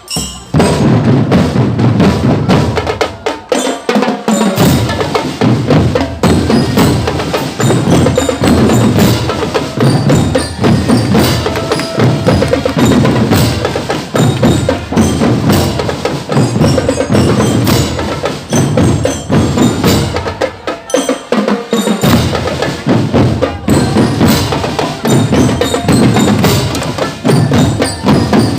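Marching percussion band playing a fast, driving rhythm: drums with bright, bell-like mallet instruments over them. The low drums drop out briefly about four seconds in and again about twenty-one seconds in.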